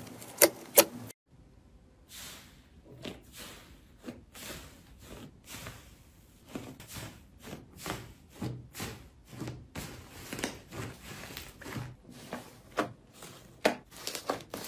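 Hands squeezing and pulling apart a large foam slime, giving many small, uneven crackles and pops with soft squelches. It opens with a few sharp pops from a hand pressing a glossy slime, then a brief cut.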